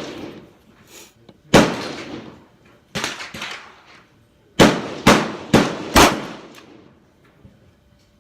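Rock Island 1911 pistol in .38 Super firing six shots of handloaded ammunition: two shots about a second and a half apart, then four quicker ones about half a second apart, each followed by a ringing echo.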